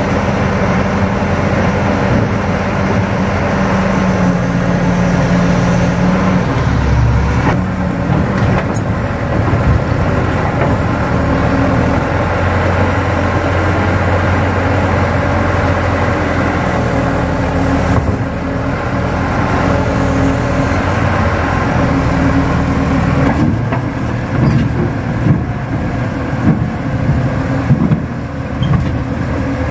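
Kato crawler excavator's diesel engine running under working load, its pitch shifting several times as the hydraulics take up the load. Uneven louder knocks come near the end.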